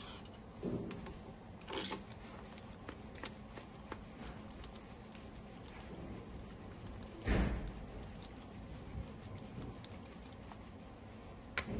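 Hand tools working on an engine's cylinder head: a steady patter of small ratchet-like clicks and metal clinks, with a few louder knocks about a second in, near two seconds and, loudest, about seven seconds in.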